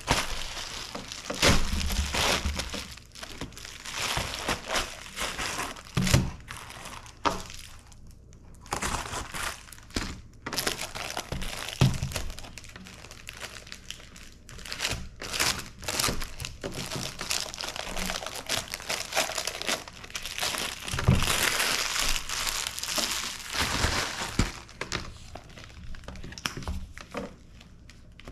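Plastic packaging crinkling and rustling as padded poly mailers are opened and the plastic wrap is pulled off an item, in irregular handling noise with sharp crackles. A few heavier thunks come from things being set down on the table.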